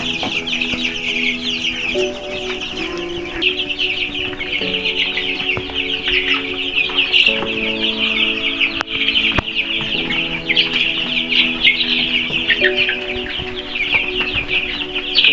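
A crowd of chicks peeping without pause, a dense chorus of short, high, falling chirps. Under them, background music of sustained chords that change every second or two.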